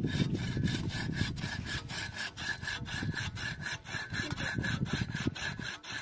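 Rapid, even scraping or sawing strokes, about five a second, each with a slight ringing edge.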